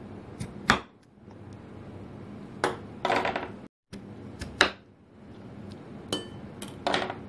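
Kitchen knife cutting through a peeled raw potato and striking a wooden cutting board: about six sharp knocks on the board, spaced a second or so apart.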